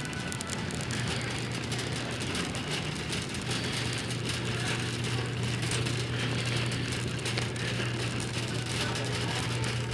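Steady rushing background noise of a large store interior, with a low, even hum that gets stronger about three and a half seconds in.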